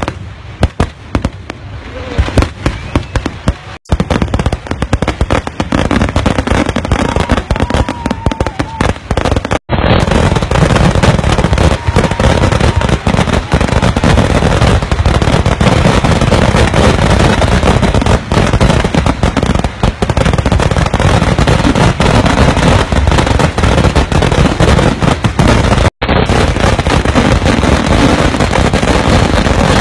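Fireworks display with aerial shells and crackers going off. Rapid crackling reports come first, then from about four seconds in a dense, continuous, loud roll of bursts. The sound breaks off abruptly for an instant three times.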